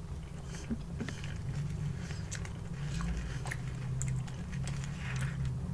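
A person chewing fast food close to the microphone: soft bites and many small, scattered mouth clicks.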